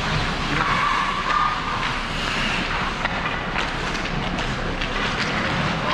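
Ice hockey play on an indoor rink: a steady rush of skates on the ice over the arena's background rumble, with short sharp clacks of sticks and puck from about three seconds in as players battle at the net.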